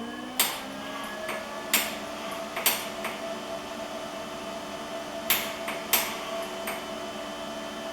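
Handling of the welder's shielding-gas cylinder valve and regulator: about six sharp metallic clicks and knocks spread irregularly. Underneath is a steady hum of several pitched tones that glides up into place at the start.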